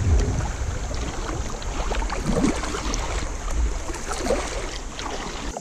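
Kayak paddling on a river: paddle blades dipping and splashing in the water, with a low rumble on the microphone that drops away suddenly near the end.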